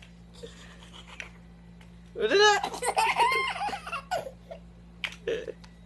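Young child laughing: a high, wavering burst of giggling about two seconds in that lasts nearly two seconds, followed by a few short giggles.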